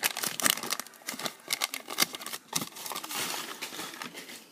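Wax-paper trading card pack wrapper crinkling and rustling as a pack is opened, with many quick clicks and snaps of cards being handled; it tails off near the end.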